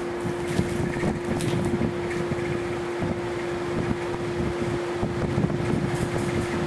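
Several electric fans and a large portable air cooler running together, their blown air buffeting the microphone in uneven gusts over a steady hum.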